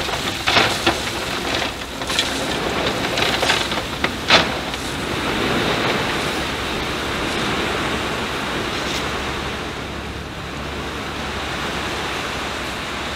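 Crushed gravel pouring out of a tipped dump truck box, a steady rushing hiss. Several sharp clacks come in the first four seconds or so, the loudest just after four seconds in.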